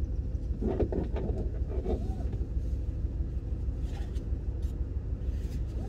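Car engine running, heard from inside the cabin as a steady low hum.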